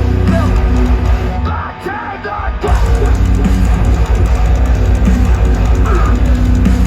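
Live metalcore band playing loud, with distorted guitars, heavy low end and drums. About a second and a half in the heavy part drops away for roughly a second, and the full band crashes back in just under three seconds in.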